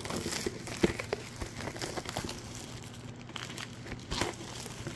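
Plastic shrink-wrap on a cardboard box crinkling and crackling irregularly as a hand grips and handles it, with a few sharper clicks.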